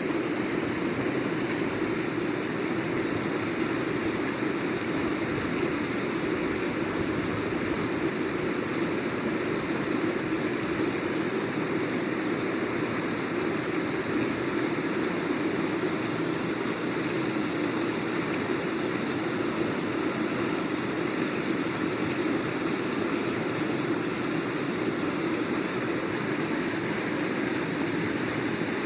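Water rushing steadily, a continuous even noise with no breaks or changes.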